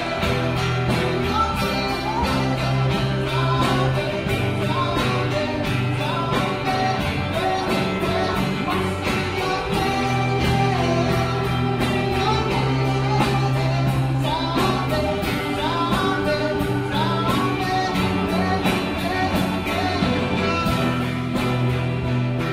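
Live open-mic performance of a rock song: a singer over guitar accompaniment with a steady beat and sustained bass notes.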